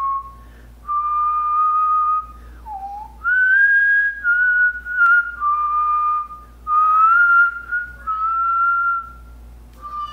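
A person whistling a slow tune of clear held notes, each about a second long, including one short lower note about three seconds in.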